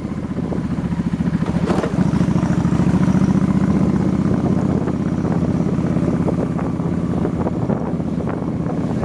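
Motorbike engine running while riding, with wind buffeting the microphone; the engine gets louder about two seconds in.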